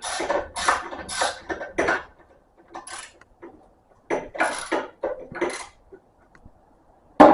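Metal tools and small engine parts clinking and scraping in a series of short bursts as a bolt is worked back into a small engine, with a sharp knock near the end.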